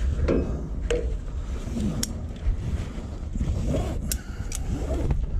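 Ratchet strap being handled: several irregular metal clicks and rattles from the ratchet buckle and hook, with the webbing scraping as it is pulled through, over a steady low rumble.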